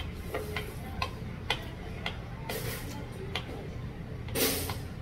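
Metal spoon clinking and scraping in an earthenware pot of soup: a series of light, irregular clicks, with two short hissy rushes, one near the middle and one near the end, over a steady low hum.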